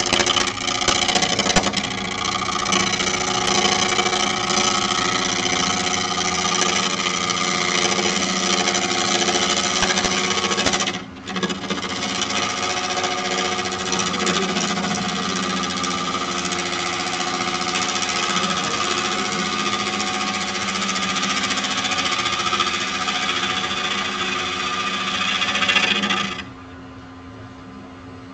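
Bowl gouge cutting the outside of a natural-edge wooden bowl spinning on a lathe: a loud, rough cutting noise over the steady hum of the lathe motor. The cut breaks off for a moment about 11 seconds in, and near the end it stops abruptly, leaving only the lathe running.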